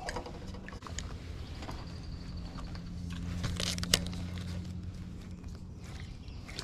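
Spinning fishing reel and rod being handled: scattered light clicks and rubbing, with a sharper click about four seconds in, over a faint steady low hum.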